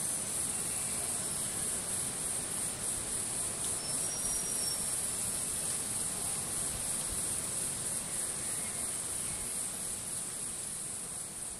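Steady, high-pitched chorus of insects in the forest, beginning to fade near the end.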